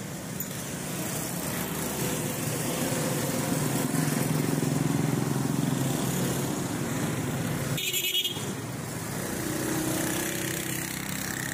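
Street traffic: a small motor vehicle's engine passes close, growing louder over the first few seconds and then easing off. A short horn toot sounds about eight seconds in.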